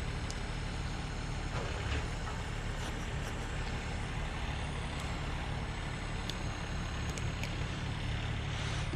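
A steady low drone, with a few faint light clicks from small carburetor parts being handled.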